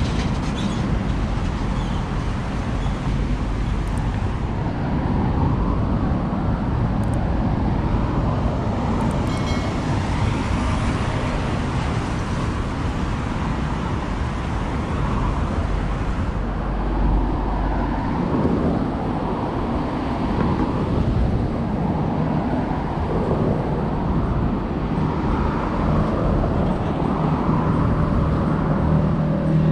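Steady road traffic: cars driving along a multi-lane avenue, a continuous rush of engine and tyre noise with single vehicles swelling past now and then.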